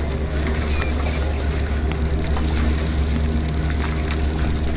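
Rapid high electronic beeping from the digital counter of a miniature model fuel pump. It starts about two seconds in and stops near the end, over a steady low hum.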